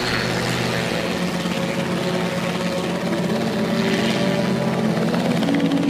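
Small two-bladed training helicopter running with its rotor turning, a steady engine and rotor drone.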